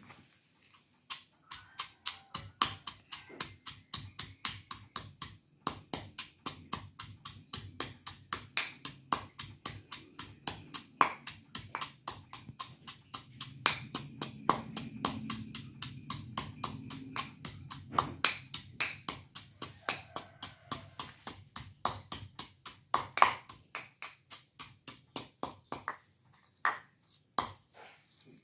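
Stone pestle pounding a spice paste in a stone mortar: a steady run of sharp knocks, about three or four a second, with a short break near the end.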